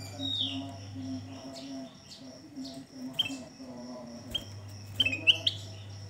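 Ruby-throated bulbul (kutilang emas) giving short, sharp chirps: a falling chirp right at the start, single chirps about three and four seconds in, and a quick, louder run of several near the end.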